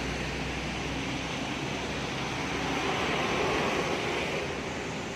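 Traffic on a rain-soaked road: steady tyre hiss and spray on wet asphalt, swelling as a vehicle passes about three seconds in. A truck's low engine rumble fades out about a second in.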